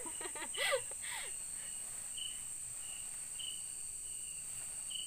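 Night-time insect chorus: a steady high-pitched buzz with a cricket-like chirp repeating every second or so. A brief wavering voice-like sound comes in the first second.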